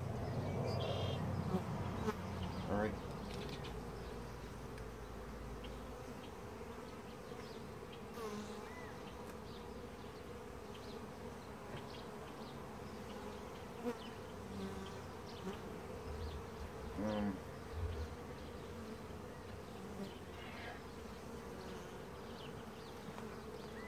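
Honeybees buzzing in a steady hum around an open hive, with occasional short knocks and rustles as the wooden frames are handled.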